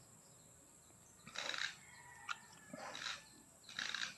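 Native pig giving three short, harsh grunts about a second apart.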